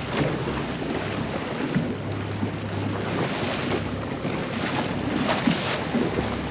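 Center-console fishing boat running across calm water: a steady rush of wind on the microphone and water along the hull, with a low steady engine hum underneath.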